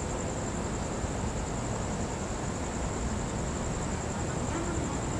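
Steady night ambience: a constant low rumble and hiss with a continuous high-pitched insect trill over it. No thunder or other sudden sound.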